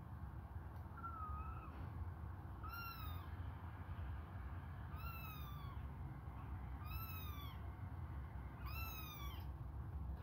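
Hungry young kittens meowing, five high-pitched falling cries about two seconds apart, the first one fainter.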